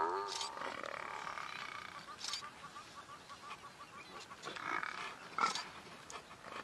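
A Cape buffalo calf bawling in distress as lionesses hold it down by the throat: a strained call that drops in pitch and then drags on with a rough, rattling quality for about two seconds, with shorter calls again a little past halfway.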